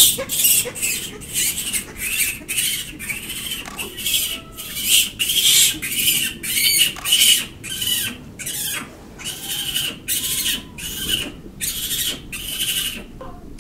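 Japanese macaques in a tight winter huddle calling: a steady string of short, shrill calls, about two a second, with a few soft rising-and-falling coos among them.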